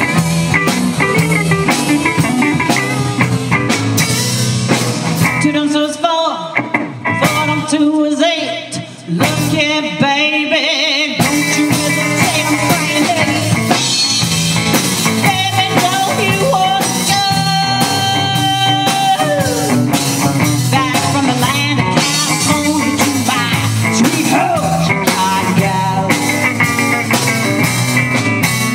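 Live rock band playing a song with electric guitars, drum kit and a woman singing lead. About six seconds in the band drops to a thinner break without the low end, then comes back in full about eleven seconds in.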